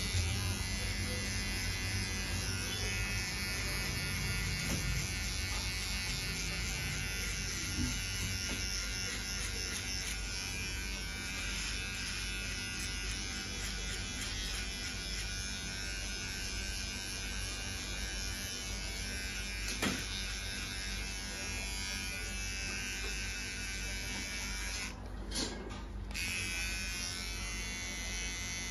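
Cordless electric hair trimmer buzzing steadily as it cuts close on the side of the head for a fade, with a couple of short clicks along the way.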